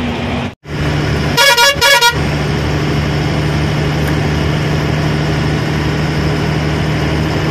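Truck horn sounding two short blasts about a second in, over the steady drone of the truck's engine heard from inside the cab while under way.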